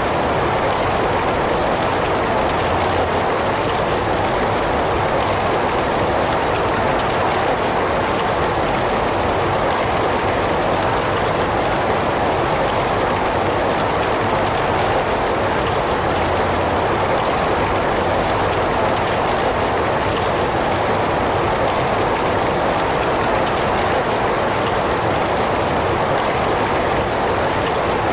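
Heavy rain falling in a steady, unbroken wash.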